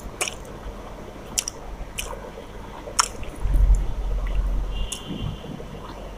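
Eating rice and chicken curry by hand: wet squishing as fingers mix the food on a steel plate, with sharp mouth clicks, then a louder low rumbling stretch of close chewing about halfway through.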